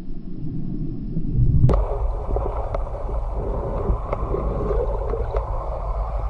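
Muffled underwater noise picked up through a camera housing while spearfishing. A low rumble changes abruptly about two seconds in to a gurgling hiss, with a few faint clicks.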